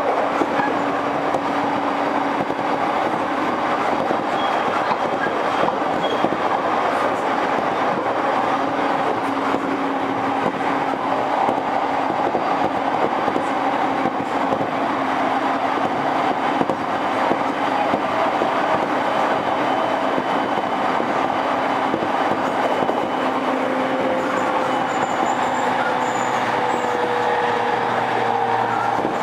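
Running noise of a JR E231 series electric commuter train at speed, heard from inside the car: a steady rumble of wheels on the track. Faint humming tones ride over it, and one of them slides down in pitch a few seconds before the end.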